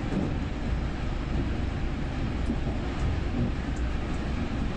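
Plasser & Theurer BDS 2000 E³ ballast distribution machine running on the track with a steady low rumble.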